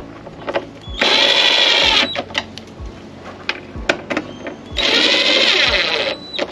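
Cordless drill/driver running cowling bolts into an outboard's lower cowling, in two bursts of about a second each, the motor's whine dropping in pitch as each run stops. The bolts are only run in, not yet torqued down. Small clicks and knocks of handling come between the runs.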